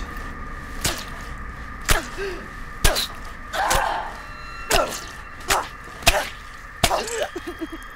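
A series of about eight heavy blows, roughly one a second but unevenly spaced, with short pained voiced cries between the hits.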